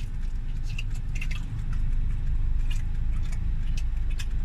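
Steady low rumble of a car heard from inside the cabin, with scattered light crinkles of a plastic food wrapper and chewing sounds.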